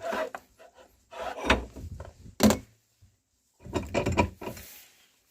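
Four short bursts of scraping and rubbing with silent gaps between them, and one sharp knock about two and a half seconds in.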